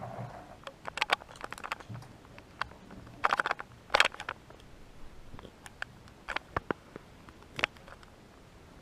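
Irregular metallic clicks and clacks of handguns and cartridges being handled, as in loading, with no shot fired. The loudest run of clacks comes about three to four seconds in.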